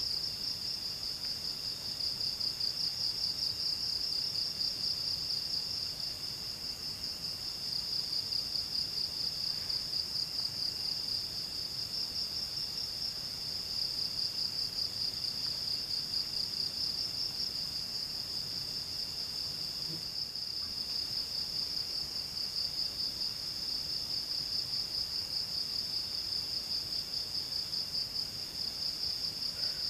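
Night insects, crickets or katydids, calling in a steady chorus: a high, fast-pulsing trill that never stops, with fainter lower-pitched calls coming and going beneath it.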